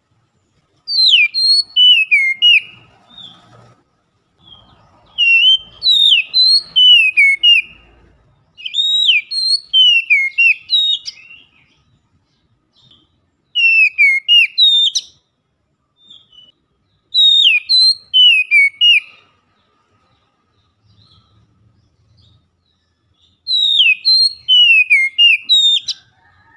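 Oriental magpie-robin singing loudly in six whistled phrases of about two seconds each, with short pauses between them. Each phrase is a run of quick notes sweeping up and down.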